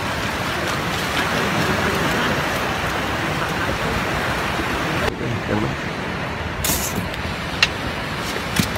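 Steady wash of breaking surf and wind, which cuts off abruptly about five seconds in. It gives way to a quieter stretch with a short scraping rush and then two sharp knocks as a styrofoam fish cooler is handled.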